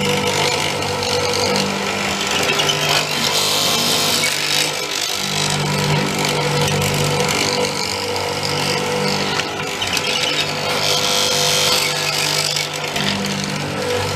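Multico K/3 hollow-chisel mortiser running, its motor humming while the chisel and auger cut a square hole into very hard wood, with a rasping cutting noise that rises and falls as the chisel is plunged.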